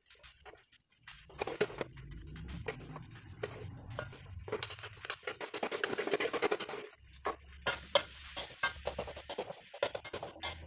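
Spatula stirring and scraping fried rice around a wok, with many quick clicks and taps of the spatula against the pan.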